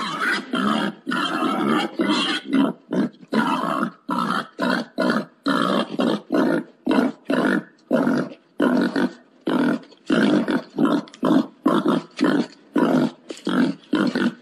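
Wild boar grunting in a long, fast series of short, rough grunts, about two to three a second, a boar's mating call. The grunts run together for the first two seconds, then come apart.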